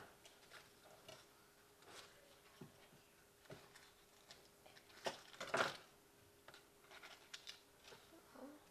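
Quiet kitchen handling sounds as butter is cut and portioned for a Thermomix: scattered small clicks and taps, with a louder cluster about five seconds in. A faint steady hum runs underneath.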